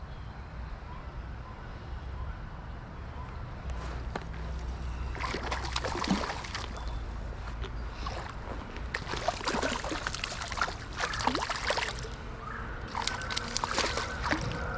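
Hooked trout splashing and thrashing in the creek water in irregular bursts as it is reeled in and landed, over a steady low rumble.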